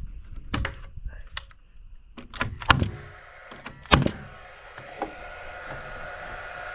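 Several sharp knocks and thuds of carpentry work on lumber, the loudest about two and a half and four seconds in. From about three seconds a steady hum with a high whine sets in underneath.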